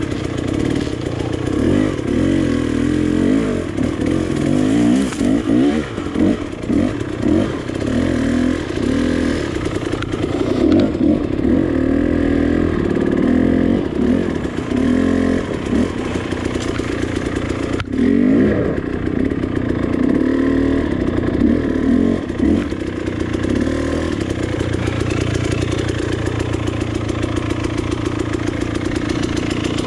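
KTM 300 two-stroke dirt bike engine revving in short, uneven bursts and blips under load on a rocky climb, with one sharp knock about halfway through, then settling into a steady idle for the last few seconds.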